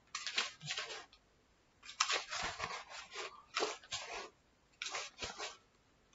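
Pages of a small paperback book being leafed through, paper rustling in about five short bursts.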